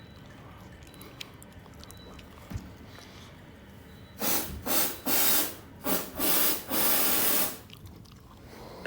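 Six short, loud bursts of hissing noise in quick, uneven succession, starting about four seconds in and lasting about three and a half seconds in all.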